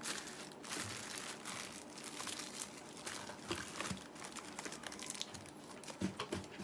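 Packaging being handled and unwrapped, crinkling and rustling in short, irregular crackles, with a few sharper ticks.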